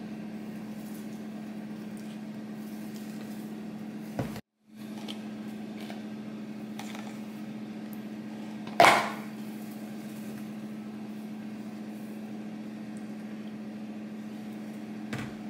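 Steady low hum of a kitchen appliance, broken by a short dropout about four seconds in. A single sharp knock comes near the middle, and a couple of small knocks come near the end.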